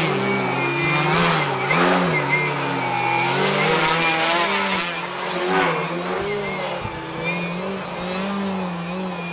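Engine and propeller of a 2-metre Sebart Su-29 model aerobatic plane running hard, its pitch swinging up and down again and again as the throttle is worked to hold a nose-up hover.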